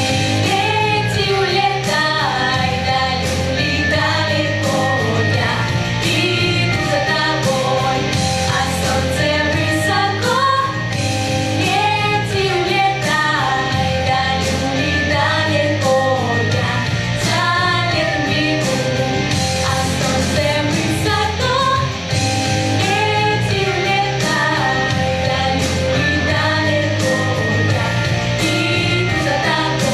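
A pop-rock song: singing over a band backing with a steady beat.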